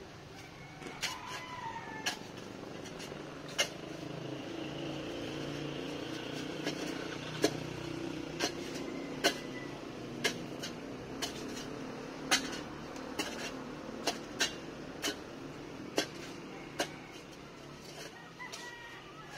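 Steel shovel blade striking and chopping into hard, dry soil as a foundation trench is dug by hand, one sharp strike about every second. Under it a motor vehicle's engine hums, swelling in the middle, and a rooster crows about a second in and again near the end.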